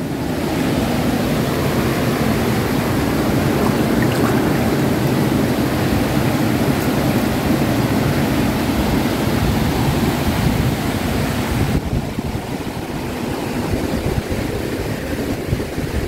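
Small, muddy stream flowing past the bank with a steady, deep rushing of water, a little softer near the end.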